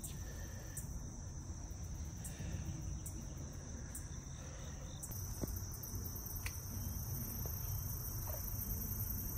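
Insects trilling steadily, a continuous high-pitched drone over a low rumble. About halfway through, a second, higher trill joins in.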